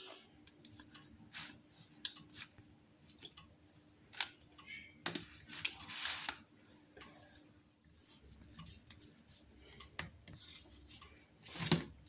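Scattered light clicks and knocks of a thin plastic container being handled and turned over onto a ceramic plate to release a microwave-baked brownie, with a louder knock near the end. A faint steady hum runs underneath.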